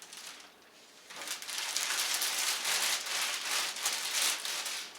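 Packaging rustling and crinkling as a boxed wet/dry shop vacuum is handled and lifted out, starting about a second in and going on to near the end.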